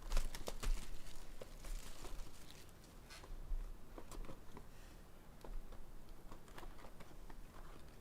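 Soft crinkling, rustling and small taps of packaging and trading cards being handled, scattered and uneven, busiest in the first few seconds.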